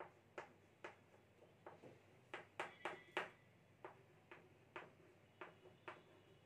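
Chalk writing on a blackboard: faint, short taps and scratches of the chalk stick, about two a second at an uneven pace.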